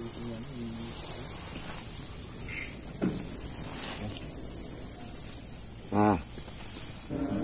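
Crickets chirring steadily in a high, continuous drone. About six seconds in, a short human voice sounds briefly over it.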